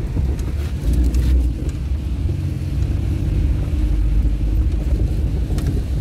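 Car on the move: a steady low rumble of engine and road noise.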